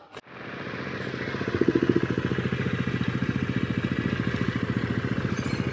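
KTM dual-sport motorcycle engine running while riding down a loose gravel trail. It comes in just after a brief break, builds over the first second and a half, then holds steady with a rapid, even pulse.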